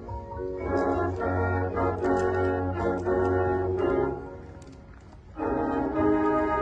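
Marching band brass playing held chords. The music thins out about four seconds in, then the full brass comes back in loudly about a second later.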